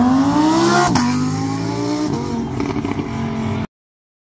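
Lamborghini Huracán's V10 engine accelerating, its pitch climbing and then dropping with an upshift about a second in, then pulling on steadily in the next gear. The sound cuts off suddenly near the end.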